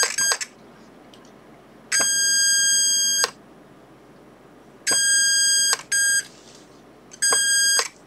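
Transistor burglar alarm circuit on a Maxitronix electronics kit, its astable-multivibrator tone oscillator sounding a steady, high-pitched electronic beep. The beep comes in several separate bursts of a second or less, each starting with a click. The alarm is set off by moving the magnet away from the reed switch.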